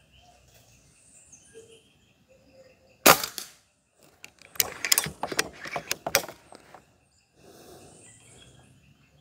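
A Karma SLS .22 PCP air rifle fires one sharp shot about three seconds in. About a second and a half later comes a quick run of metallic clicks and clacks as the side lever is worked to cock it and chamber the next pellet.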